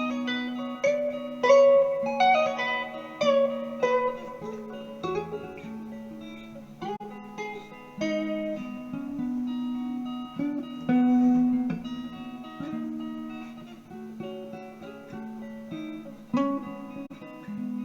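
Guitar music: plucked notes ringing over a lower bass line.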